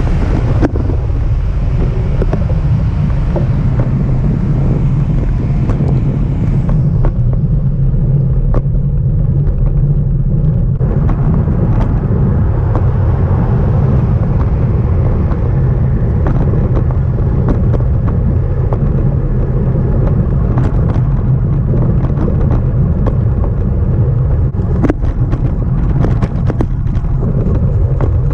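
Wind buffeting the microphone of a strap-mounted action camera on a moving road bicycle: a loud, steady low rumble, with scattered small clicks and rattles.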